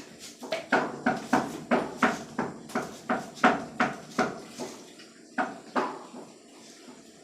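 Kitchenware knocking and clattering in a quick series of strokes, about three a second, stopping about six seconds in.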